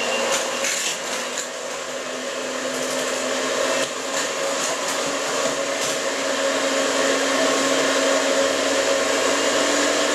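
Electric mixer running steadily, beating oil, sugar and eggs until fluffy and well combined.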